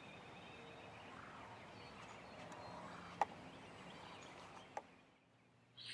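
Faint field ambience with distant bird calls and one sharp click about three seconds in.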